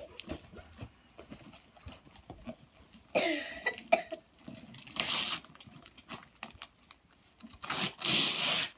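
Wrapping paper being torn off a gift box by hand: three short rips about three, five and eight seconds in, the last the longest and loudest, with light rustling and tapping between.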